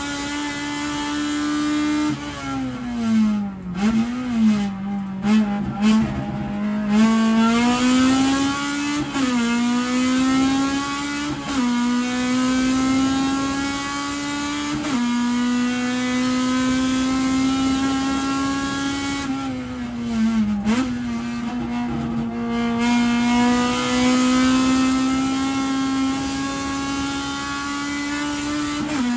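Honda Civic EF9 race car's four-cylinder engine heard from inside the cockpit, pulling up through the gears. The pitch rises, drops sharply at each upshift, then climbs again. Twice the revs fall away with quick blipped downshifts under braking before it accelerates again.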